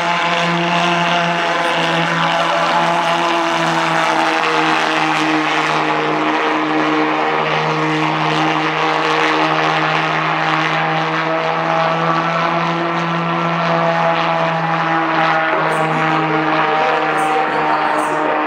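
Model jet aircraft's engine running flat out with a loud, steady buzz, its pitch wavering slightly as the model takes off and climbs away. The engine runs only at full throttle until its fuel is spent.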